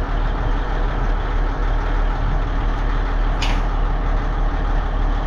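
Steady low drone of an idling heavy engine, with one short sharp metallic click about three and a half seconds in as the wrench works the oil drain plug.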